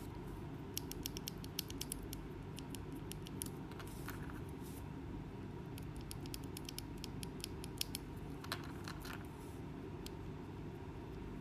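Akko V3 mechanical keyboard switches pressed and worked by hand, giving light, sharp clicks in short irregular clusters over a steady low hum.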